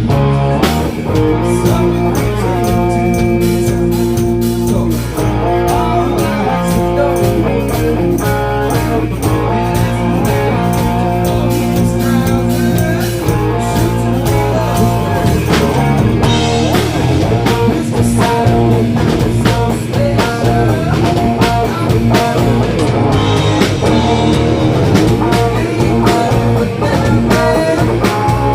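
Rock band playing a blues-rock passage, led by guitar, with a steady beat throughout.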